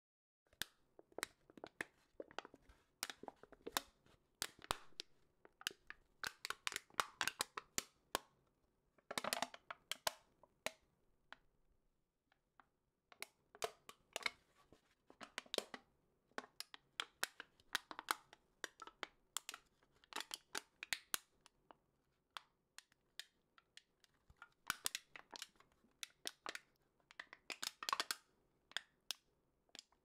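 A metal drink can being crushed: irregular crackling and crinkling in bursts, with a couple of brief pauses.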